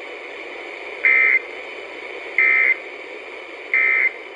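Three short, buzzy EAS/SAME end-of-message data bursts, evenly spaced about a second and a third apart, over the steady hiss of a weather radio receiver. They mark the end of the broadcast tornado watch alert.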